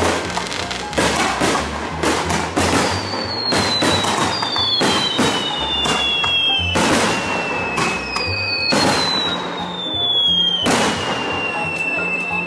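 Fireworks display: a rapid series of bangs and crackles from bursting shells. Several long whistles slide down in pitch and overlap from about three seconds in.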